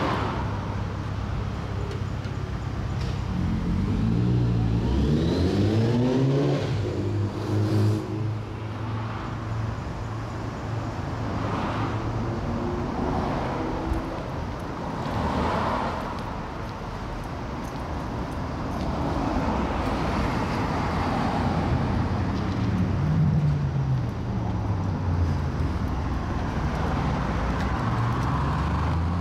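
Road traffic: car engines running close by, one revving up with a rising note about five seconds in, then several vehicles passing.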